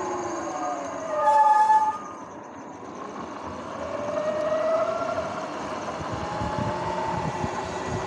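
Sur-Ron X electric dirt bike's motor and drive whine, falling in pitch as it slows. A short, loud squeal about a second in fits the brakes bringing it to a stop. From about three and a half seconds the whine rises again as the bike pulls away, over wind and tyre noise.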